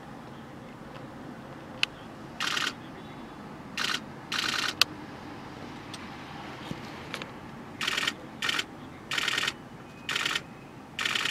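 A single-lens reflex camera's shutter firing in short rapid bursts, about eight of them, each lasting a fraction of a second, with a couple of single sharp clicks in between. A steady low rumble runs underneath.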